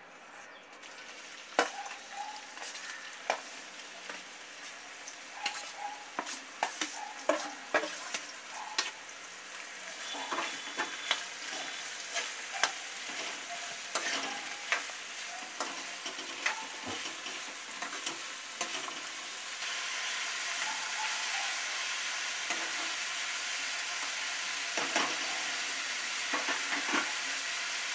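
Chopped onions and green chillies frying in hot oil in a kadai, sizzling, while a metal spatula scrapes and clicks against the pan. The stirring stops about twenty seconds in, leaving a steady sizzle.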